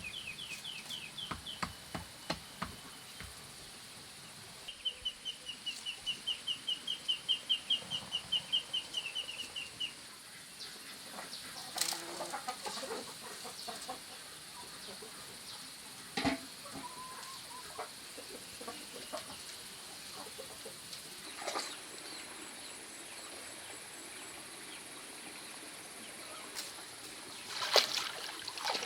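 A bird calling in two quick runs of evenly repeated high notes, the second run longer and louder, over a faint steady high hiss. A few short knocks follow later.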